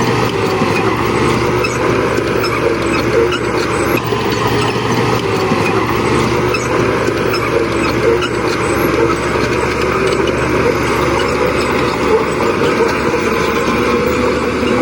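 Heavy-machinery diesel engines running steadily, a continuous loud drone with a steady hum underneath.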